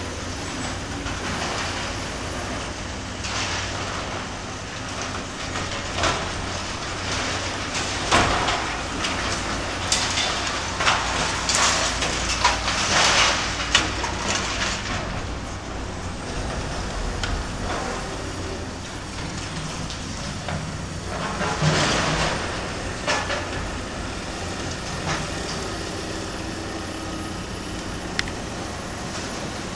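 Caterpillar excavator's diesel engine running steadily while its demolition attachment tears into a warehouse's steel roof frame and corrugated metal sheeting. Bursts of crunching, clanking metal come about a third of the way in and again about three-quarters through.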